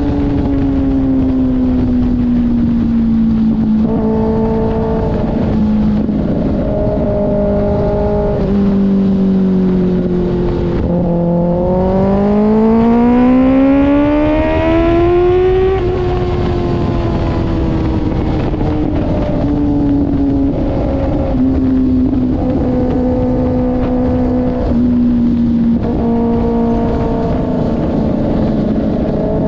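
Kawasaki ZX-6R 636 cc inline-four running through an IXIL aftermarket exhaust. The engine note sinks slowly for about ten seconds, then rises sharply over about four seconds as the revs climb about halfway through, and sinks gradually again.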